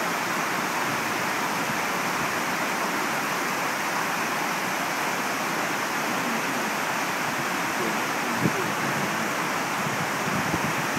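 Shallow river rushing over rocks and through rapids: a steady, even rush of water.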